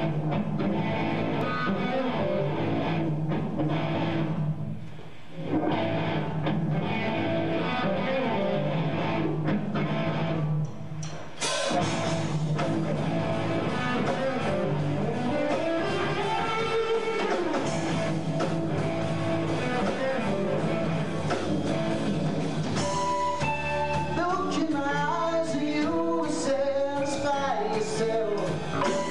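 Live rock band music: an electric guitar plays alone at first, and the full band with drums comes in about twelve seconds in. A man starts singing near the end.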